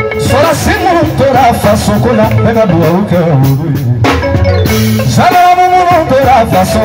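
A man singing live through a PA microphone over a band with drum kit, cymbals and guitar, his vocal line bending and wavering in pitch. The voice pauses briefly about four seconds in, then comes back on a long held note.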